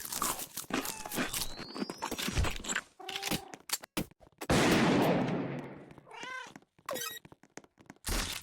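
Cats meowing: a few short meows in the second half, with scattered clicks and knocks in the first half and a loud rushing noise lasting about a second and a half in the middle.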